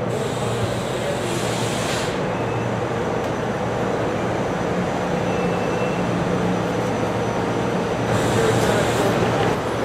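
Commuter train running at the station platform: a steady rumble with a hiss that comes in during the first two seconds and swells again near the end, when it is loudest.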